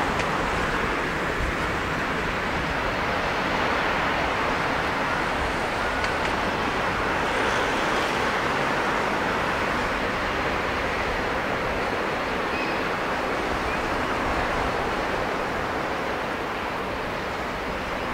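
A Bombardier Q400's twin Pratt & Whitney PW150A turboprops running steadily at low power as the aircraft rolls slowly along the runway: an even rushing drone with a faint low hum under it, easing slightly near the end.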